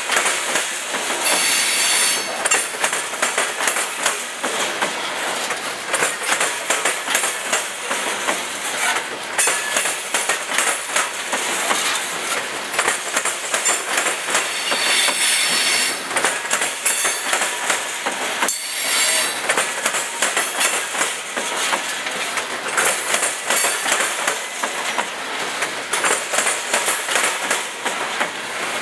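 Open-top hopper cars of a CSX freight train rolling past: a steady clatter of steel wheels clacking over the rail joints, with brief high-pitched wheel squeals several times.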